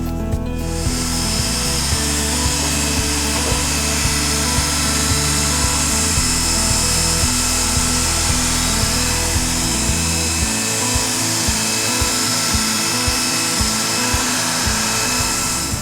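A power tool runs steadily for most of the stretch, with a hiss and a high steady whine, then stops near the end. It is most likely an air tool such as a pneumatic sander used in panel repair. Background music plays throughout.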